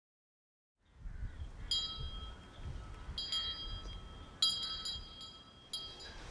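High metallic chimes, small bells struck in four ringing clusters about a second and a half apart over a low rumbling drone, starting about a second in after silence.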